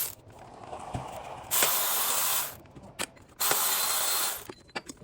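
Socket ratchet wrench ratcheting in two fast runs of about a second each, with a few sharp clicks between, while undoing the small 10 mm and 12 mm bolts that hold a water pump on.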